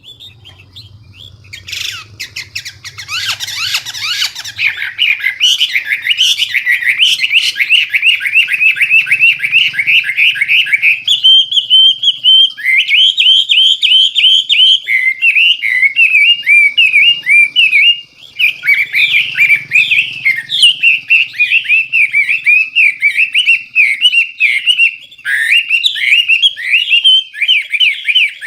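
Chinese hwamei singing loudly and nearly without pause: a long, clear song of quick runs of repeated whistled notes that switches between varied phrases, with a brief break about two-thirds of the way through.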